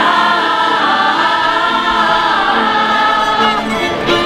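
A crowd of mostly women singing together in chorus with a violin, holding long notes. The singing breaks off near the end.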